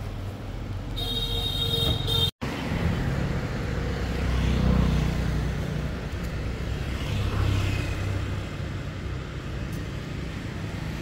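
Road traffic: vehicle engines running with a steady low rumble, swelling louder as vehicles pass, with a short high tone about a second in.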